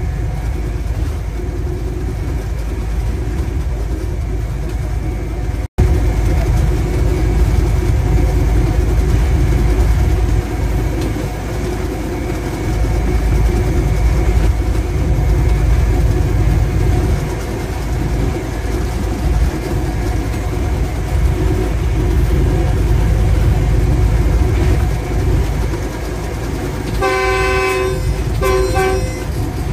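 GE U20 diesel-electric locomotive running along the line, a steady engine drone and rail rumble heard from the cab, with a split-second break about six seconds in. Near the end the locomotive's horn sounds two blasts, the first longer than the second.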